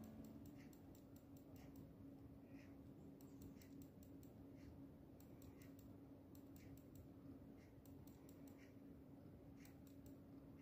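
Near silence, broken by faint, irregular clicking at a few clicks a second over a low steady hum.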